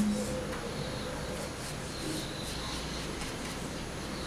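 Faint, soft swishing of a flat bristle brush spreading shellac over crumpled kraft paper glued on an MDF box.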